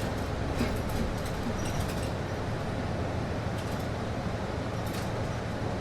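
Steady low hum and hiss inside a city bus cabin from the air conditioning and engine running, with a few faint clicks.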